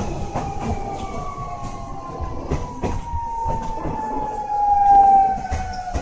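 Keio 1000 series train's VVVF inverter whine, heard from inside the car, falling steadily in pitch as the train slows, over wheels clicking on rail joints. The whine is loudest about five seconds in.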